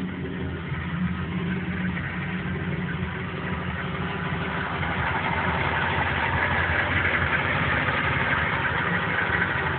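A freshly rebuilt car engine idling steadily, getting a little louder about halfway through.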